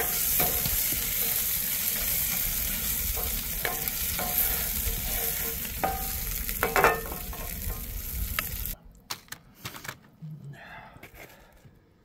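Vegetables frying in cooking oil in a pan, a steady sizzle with clinks and scrapes of a utensil stirring them. The sizzle cuts off suddenly about three-quarters of the way through, leaving only a few faint clicks and knocks.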